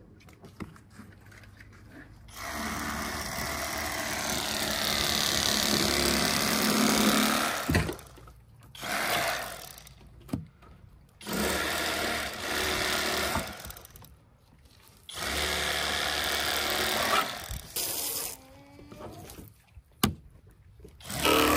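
Bubba Pro Series cordless electric fillet knife running in four bursts as it cuts fillets off a trout. The first burst lasts about five seconds and the rest a second or two each, with short pauses between.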